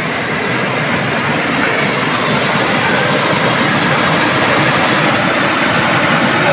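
Steady rushing of flowing river water, a loud even wash that grows slightly louder.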